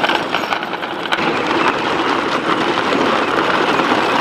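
Plastic wheels of kids' ride-on toy tractors and their towed trailers crunching over gravel, a steady dense crackle.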